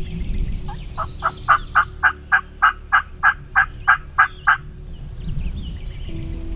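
Wild turkey yelping: a run of about thirteen evenly spaced yelps, about three a second, lasting some four seconds.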